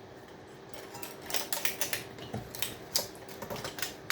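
Light, irregular clicks and taps of metal tools and parts on a power-supply circuit board as it is worked apart, over a faint steady hum.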